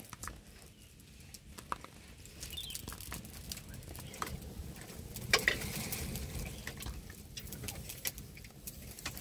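Scattered light clicks and taps of ingredients being handled and set down in a wooden mortar, the loudest about five seconds in, over a low steady rumble.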